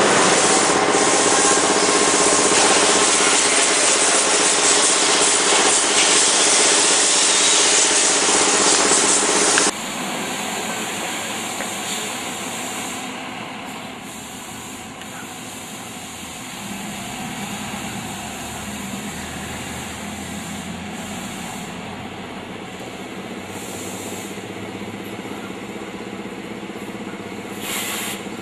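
Diesel coach engine running with a strong steady hiss, cut off abruptly about ten seconds in; then a quieter engine running, with a few short hisses.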